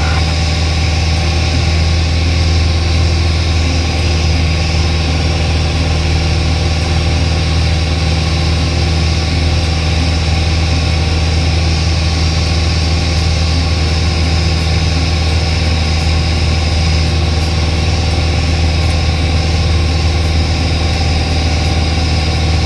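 Single-engine light aircraft's piston engine and propeller droning steadily, heard from inside the cockpit, with no change in pitch or power.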